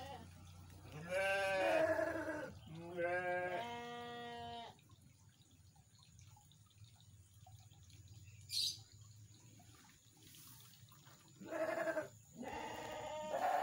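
Domestic goats bleating in a wooden goat shed: a short bleat about a second in, a longer, steadier bleat about three seconds in, then quiet, and more bleats near the end.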